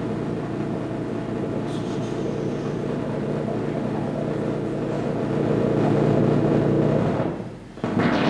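Small synthesizer driven by a chaotic-equation (Lorenz attractor) circuit, giving off a dense, buzzing drone of many stacked tones that grows louder about five seconds in. Near the end it drops out for a moment and comes back brighter and noisier.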